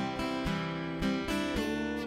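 Acoustic guitar strumming chords, playing church worship music.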